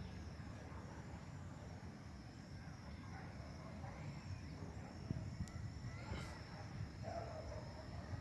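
Night insects giving a steady high-pitched trill over a low rumble, with a single sharp click about five and a half seconds in.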